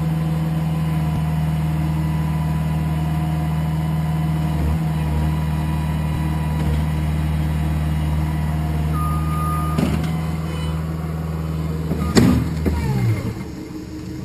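Bobcat T110 compact track loader's diesel engine running steadily, with a short high beep about nine seconds in. Near the end a loud crash and clatter as the loader rolls over, and the engine winds down and stops.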